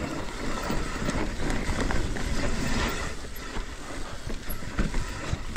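Mountain bike riding down a dirt trail: tyres rolling over the dirt and the bike rattling over bumps, with wind noise on the camera's microphone.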